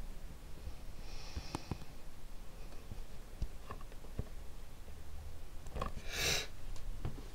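Light clicks and taps of hands handling small cardboard and tin packaging, with one short sniff about six seconds in.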